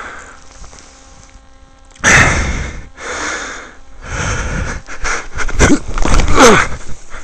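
Hard breathing and scuffing of boots on a steep, loose dirt slope as a person runs down it and slips, with a short falling vocal cry near the end.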